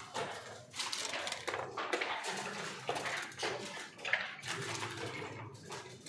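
Backgammon checkers being picked up and set down on the board: repeated light clicks and short slides, one move after another.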